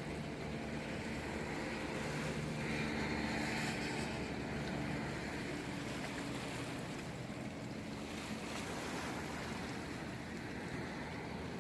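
Sea waves washing in, one swelling louder a few seconds in, over a steady low motor hum.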